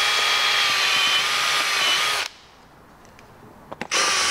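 Cordless drill running at a steady speed as it bores a hole. It stops a little over two seconds in and starts again with a second run just before the end.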